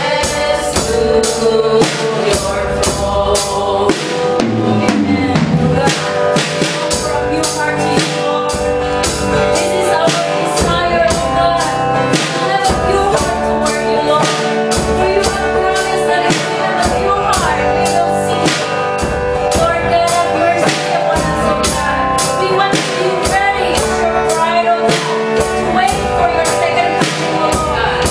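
Worship song played live: voices singing over a drum kit keeping a steady beat.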